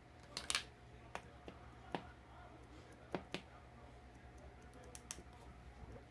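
A few scattered sharp clicks or taps, the loudest cluster about half a second in, over a faint low hum.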